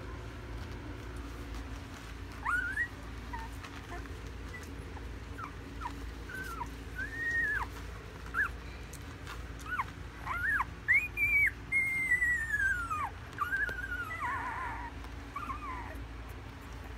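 Newborn pit bull puppies squeaking and whimpering in short, high cries that rise and fall in pitch. They come more often and louder after about ten seconds, with one longer cry that slides down.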